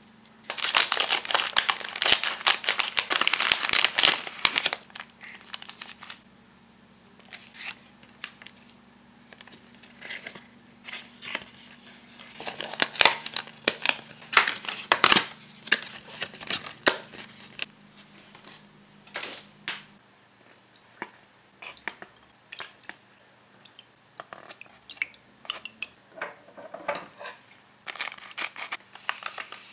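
Foil powder sachets and paper packaging crinkling as they are handled and torn open, in several bursts with light clicks and taps between; the longest, loudest burst is in the first few seconds.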